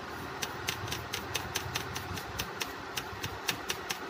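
A small stiff brush scrubbing across a laptop motherboard in quick, even strokes, about four or five a second, over a steady low background rumble.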